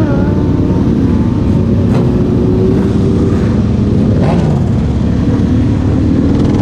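Sport motorcycle engines running steadily while riding in a group, the nearest bike loudest, with brief revs that rise and fall in pitch at the start and again about four seconds in.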